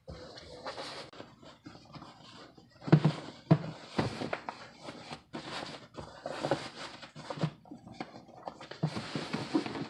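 A thin car seat cover being pulled and worked down over a car seat by hand: irregular rustling and swishing of the flimsy cover material, with a few louder bumps and scrapes about three seconds in.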